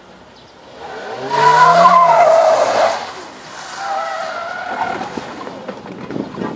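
Hyundai Accent's tyres squealing loudly through a tight turn for about two seconds, with the engine revving beneath, then a second, quieter squeal through the next turn.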